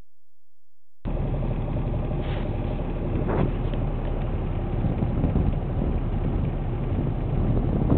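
Motorboat engine running steadily, with wind rushing on the microphone; it cuts in abruptly about a second in, after silence.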